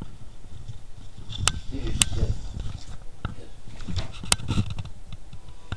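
Camera handling noise: a few sharp clicks and knocks over a low rumble as the handheld camera is moved about, with faint muttering.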